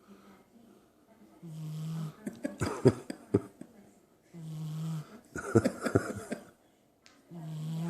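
Heavy snoring: two snores about three seconds apart, each a low steady drone followed by a rattling, crackling stretch, with a third snore starting near the end.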